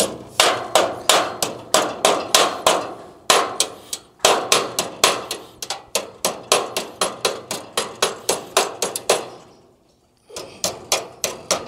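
Fast, even hammer blows on metal, about four a second, each ringing briefly; the hammering stops for about a second near the end, then starts again.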